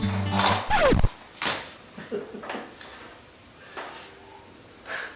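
Background music ends under a second in with a quick downward pitch slide. After it come scattered light clinks and knocks of hard parts being handled.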